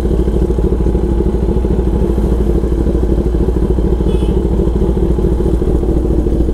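Kawasaki Ninja ZX-10R's inline-four engine idling steadily, a deep, even, rapid pulsing with no revving.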